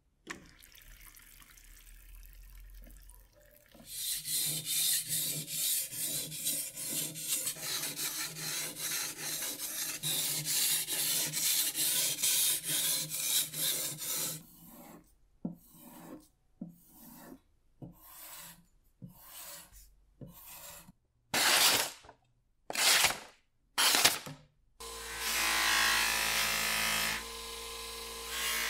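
Steel slicer blade being honed on a wet 3000/8000-grit combination whetstone: a fast run of continuous rubbing strokes, then about a dozen separate strokes with short gaps, the last three the loudest. Near the end an HBM 150 mm bench grinder with a cloth buffing wheel runs steadily as the blade is polished on it.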